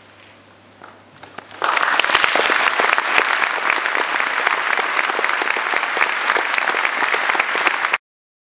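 Audience applauding: a few scattered claps, then full applause breaking out about one and a half seconds in, cut off abruptly near the end.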